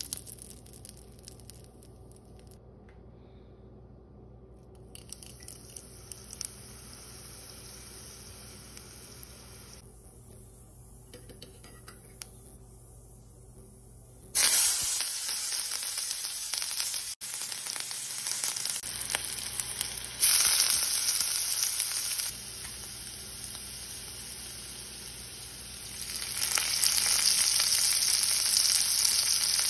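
Hot cooking oil in a kadai frying Indian tadka ingredients: faint for the first half, then a sudden loud sizzle about halfway through as whole seeds hit the oil, which carries on and gets louder twice more as further ingredients go in, the last time near the end as green chillies are added.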